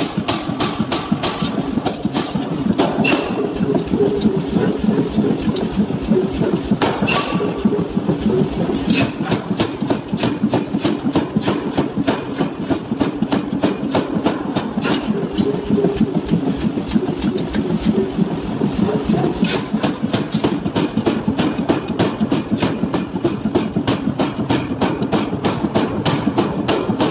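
Power forging hammer striking a red-hot steel billet in a steady train of rapid blows, several a second, with the hammer's machinery running underneath.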